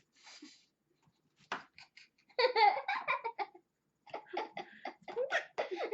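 Laughter in two spells of quick, pulsing bursts, the second starting about four seconds in and still going at the end.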